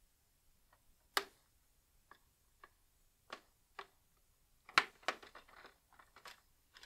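Base cover of a Dell Latitude 5411 laptop being pried off with a plastic spudger: irregular sharp clicks and snaps as the cover releases along its edge. The loudest snap comes a little under five seconds in, followed closely by a quick run of smaller clicks.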